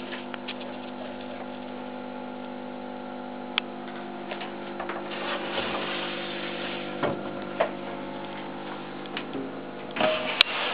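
Steady machine hum made of several held tones, with a few scattered clicks. Near the end there is a burst of rustling handling noise, a hand against the camera.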